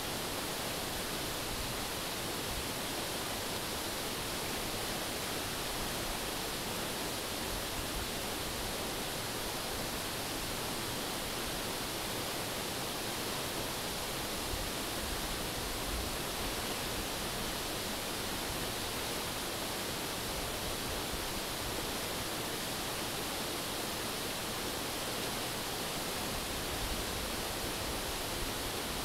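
Steady rushing of a shallow mountain river running over rocks, an even hiss without breaks.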